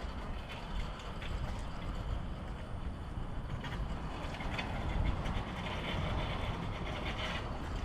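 Pressure washer running steadily, with a low engine rumble and the hiss of its water spray.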